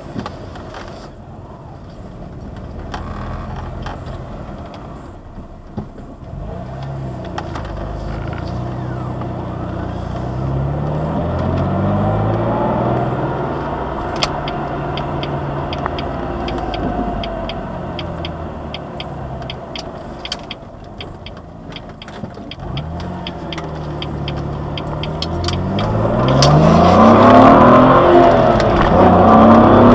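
The 2.5-litre V6 of a 2003 Jaguar X-Type, heard inside the cabin, accelerating through the gears of its five-speed manual. The revs climb once, ease back, then climb hard again under full throttle, and the engine is loudest near the end.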